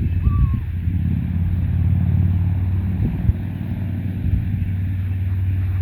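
A motor vehicle's engine running steadily, a constant low rumble.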